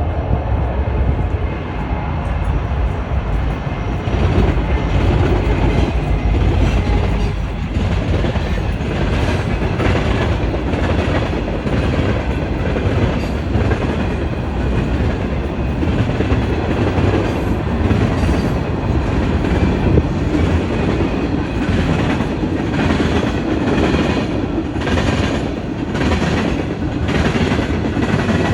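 A train rolling past, its wheels clacking steadily over the rail joints, the clacks growing more distinct in the second half.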